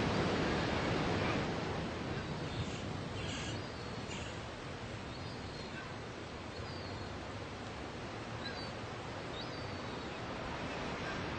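Surf breaking and washing up the beach, a steady rushing wash, with a few faint high chirps in the second half.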